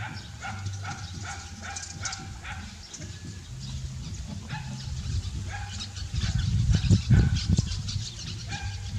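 Short, repeated squeaky animal calls over a low rumble; the rumble grows louder about six seconds in.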